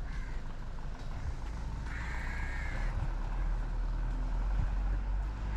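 A crow gives one drawn-out caw about two seconds in, over a steady low outdoor rumble.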